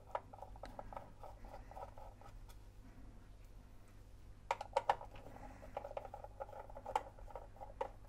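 Faint handling noises from fitting a rubber drive belt on a record player's metal chassis: small clicks, taps and scratches, with a few sharper clicks about halfway through and again near the end.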